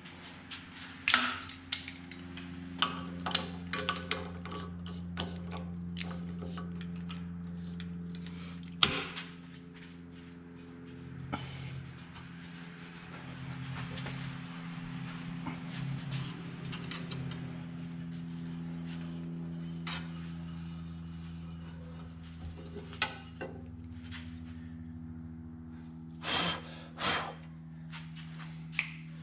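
A wrench clicks and knocks against the studs and flange of a cast turbo manifold clamped in a milling-machine vise: scattered sharp metal knocks, the loudest about nine seconds in. A steady low hum runs underneath.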